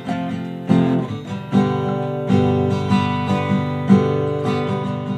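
Background music: an acoustic guitar piece, with chords strummed about once a second at a steady pace.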